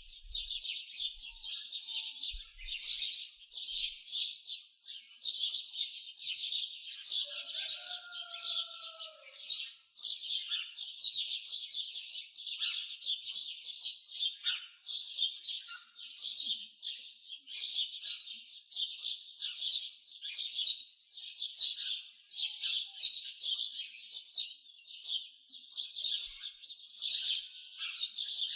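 Many small birds chirping and twittering in a dense, continuous high-pitched chorus. About seven seconds in, a lower sliding call sounds briefly over it.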